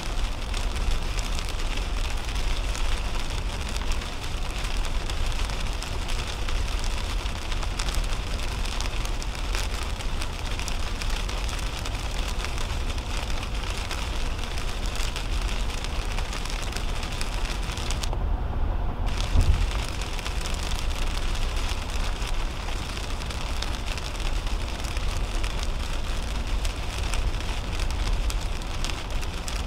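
Heavy rain pattering on the windshield and roof of a moving 2010 Toyota Camry, over a steady low rumble of tyres on the wet highway. About two-thirds through, the rain hiss drops out for about a second, followed by a single low thump.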